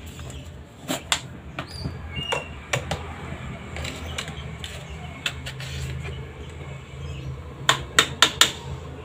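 Scattered clicks and knocks of a spoon against a plastic salt jar and the wok as salt is scooped and added, ending in four quick taps near the end. A steady low hum runs underneath.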